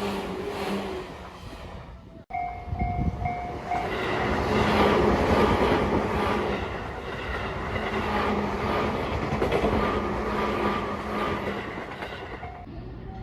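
An electric commuter train passing close by, its wheels clattering over the rail joints, loudest in the middle and fading near the end. After a sudden cut about two seconds in, a high tone sounds in four short, even pulses as the train noise builds.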